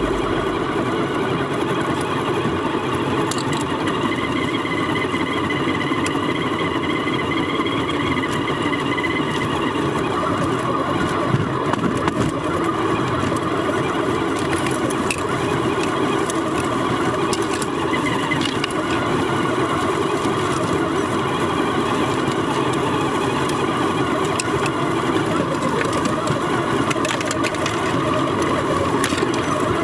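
The electric drivetrain of an HG P408 1/10 scale RC Humvee, a 550-size brushed motor driving a two-speed gearbox and portal axles, whirs steadily as the truck drives over rough ground, heard from inside its hard plastic cab. A few sharp clicks and knocks come through along the way.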